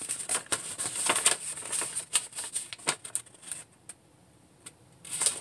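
Paper scroll rustling and crackling as it is handled, a quick run of light crackles that falls quiet about three and a half seconds in and picks up again briefly near the end.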